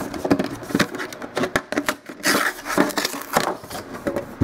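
A trading card box and its cards being handled and opened by hand: a run of quick clicks, taps and light knocks, with a burst of rustling about two seconds in.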